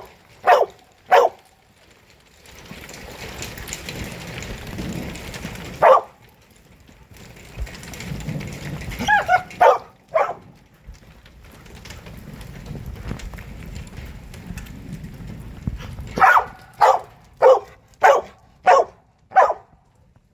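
A dog barking: a couple of barks at the start, one about six seconds in, three around ten seconds in, and a quicker run of about seven barks near the end. A steady rushing noise fills the gaps between the barks.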